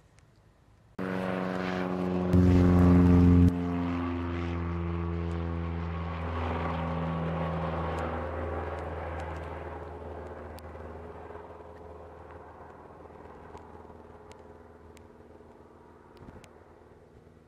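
Single-engine piston propeller plane at takeoff power, climbing out after lift-off with a steady engine-and-propeller drone. It starts abruptly about a second in, is loudest for about a second soon after, then fades steadily as the plane climbs away.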